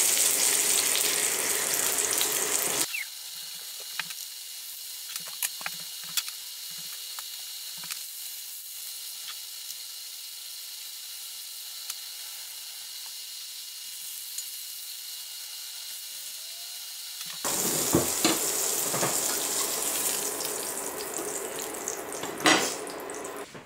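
Chicken cordons bleus sizzling in hot oil in a frying pan. The sizzle is loud at first, drops to a quieter hiss with a few light spatula taps for most of the middle, and comes back loud for the last few seconds.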